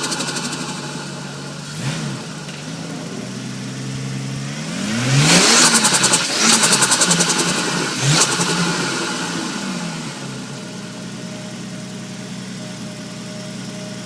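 Holden VL Commodore Turbo's 3.0-litre turbocharged straight-six idling, blipped once about two seconds in, then revved several times between about five and eight seconds in. Each time the throttle snaps shut after a rev there is a rapid fluttering chatter: turbo flutter, the compressor surging back with nowhere to vent. It then settles back to a steady idle.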